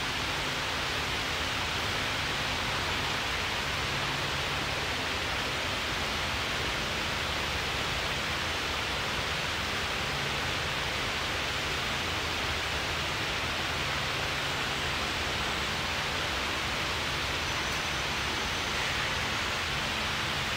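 Steady, even rushing noise with a faint low hum beneath it; no distinct knocks, clanks or voices stand out.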